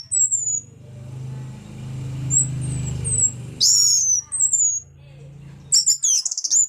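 Orange-headed thrush (anis merah) singing: high, clear whistled phrases, several sliding down in pitch, ending in a fast tumbling phrase near the end. A low hum runs underneath.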